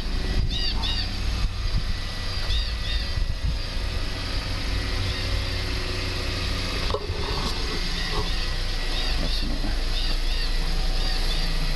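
Outdoor background: a steady low rumble with small birds chirping in short repeated bursts.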